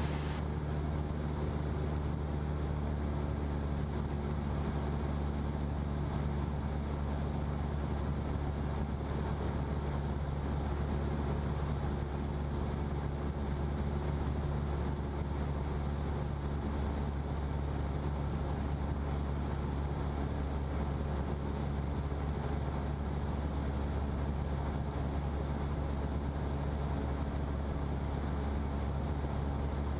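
Single-engine Cessna's piston engine and propeller droning steadily inside the cockpit, holding one even pitch.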